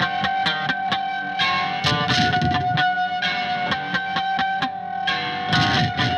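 Fender Custom Shop 1962 Jazzmaster electric guitar in an alternate tuning (G G D D D# D#), played through effects. Fast repeated picking runs under one high note that rings steadily throughout.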